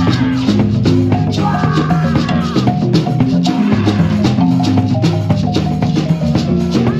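Marimba band playing a fast, rhythmic groove, with low marimba notes repeating in a pattern under a shaker keeping time. A high sliding line comes in briefly about a second and a half in.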